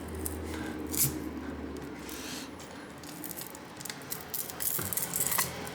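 A glass tablet touch panel being pried and peeled away from its adhesive, giving irregular scratchy noises and sharp clicks about a second in and again near the end.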